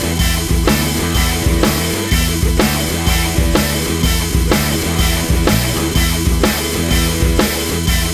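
Background rock music with a steady driving beat of drums, bass and guitar.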